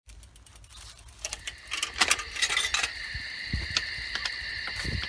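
Mountain bikes being pushed along a trail: irregular metallic clicking and ticking from the rolling rear freewheel hubs and rattling bike parts, with footsteps in dry leaves. About halfway in, a steady high buzz joins the clicks.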